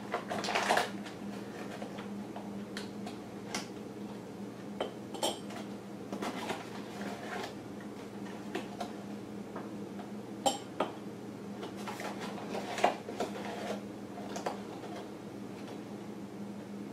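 Measuring tablespoon scooping flour from a paper flour bag and tipped into a ceramic mug: scattered light clinks and scrapes, over a steady low hum.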